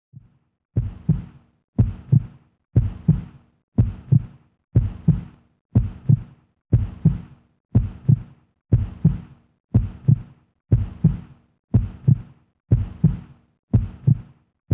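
Heartbeat sound effect: a slow, steady lub-dub double thump, about once a second.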